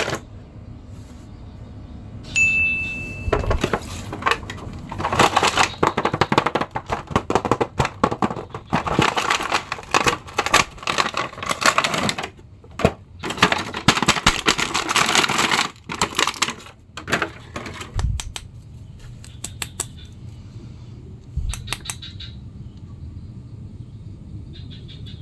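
Clear plastic blister packaging and cardboard box being handled and opened by hand, crinkling and rustling with many clicks and taps. The rustling is busiest through the first two-thirds and thins out to occasional clicks near the end.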